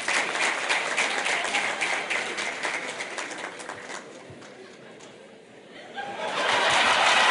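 Audience applauding. The clapping thins out and dies down about four seconds in, then swells into loud, dense applause about six seconds in.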